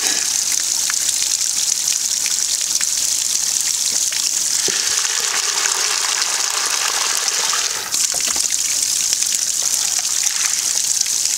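A stream of water pours steadily from a stone spout into a metal basin of soaked grains and pulses as they are washed. From about four and a half to eight seconds in, the splashing grows fuller while the basin sits under the stream, then briefly drops.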